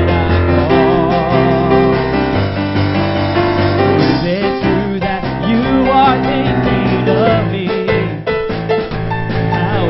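Live praise band music led by keyboard piano over a bass line, with wavering melodic lines above.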